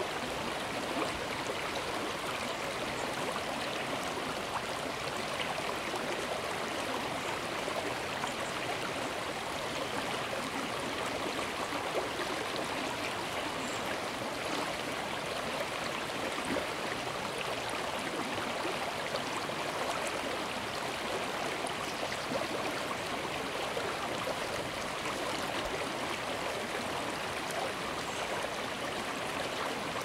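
Shallow stream babbling and gurgling as water runs over a submerged stone beside a mossy rock: a steady, even rush of water.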